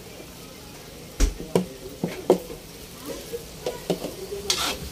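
Shredded cabbage being added by hand into a wok of simmering broth: a few sharp knocks and taps against the wok from about a second in, and a brief hiss near the end.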